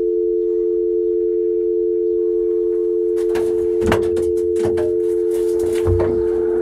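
Telephone dial tone: a steady two-note hum on the line after the caller has hung up. In the second half it is joined by several knocks and clatters, with the loudest thumps about 4 and 6 seconds in, as the phone-box handset and door are handled.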